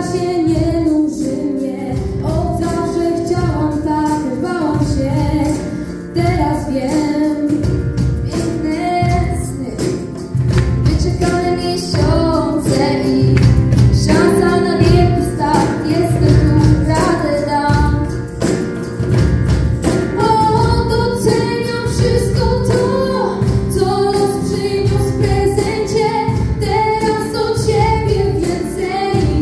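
Live band music: two young female voices sing a song through microphones over keyboard and drums, with a steady beat throughout.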